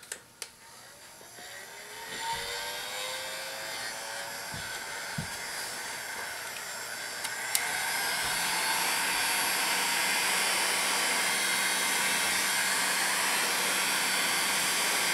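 Handheld electric heat gun running: its fan whine rises as it spins up over the first few seconds, then it blows steadily. About seven and a half seconds in there is a click and it runs louder.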